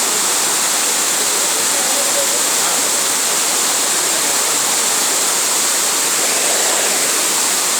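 Elephant Falls waterfall pouring, a loud, steady rush of falling water that holds even throughout.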